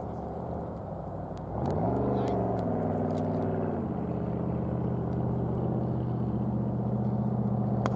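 A motor engine running, its pitch rising and falling briefly about two seconds in, then holding steady, with a sharp click near the end.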